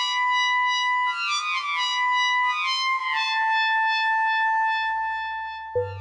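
PPG Infinite software synthesizer playing a resynthesized trumpet patch: one held note, rich in overtones and wavering slightly, that steps down a little in pitch about three seconds in. Near the end a lower note comes in with a few quick re-attacks.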